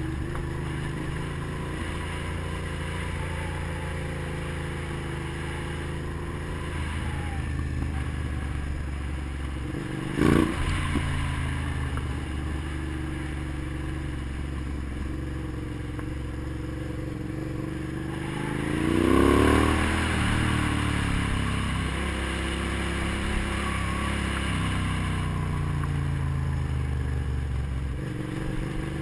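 Motorcycle engine running steadily as the bike is ridden along a dirt road. A single sharp knock comes about ten seconds in. About nineteen seconds in, the engine revs up and back down, the loudest part.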